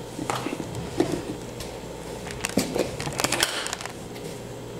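Light knocks and clicks of spice containers and their caps being handled and set down on a countertop, with a quick cluster of several clicks a little past halfway.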